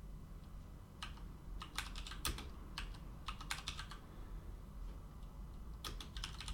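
Typing on a computer keyboard: quick runs of key clicks with a pause of about two seconds before a last run near the end, over a faint low hum.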